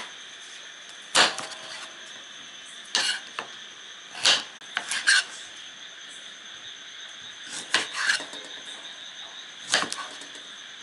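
Kitchen knife chopping carrots and then green beans on a round chopping board: sharp, irregular knocks of the blade hitting the board, some in quick pairs, over a steady high-pitched hiss.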